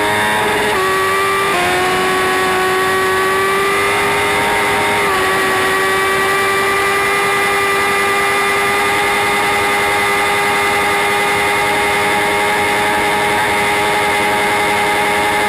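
Sport motorcycle engine running hard at high revs, heard from on the bike. The note breaks and steps a few times in the first two seconds and once about five seconds in as gears change, then holds steady and high.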